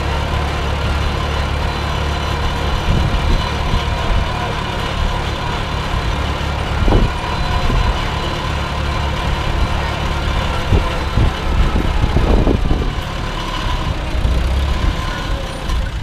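Old farm tractor engine running steadily as it pulls a wagon, heard from the wagon, with a few knocks and rattles partway through.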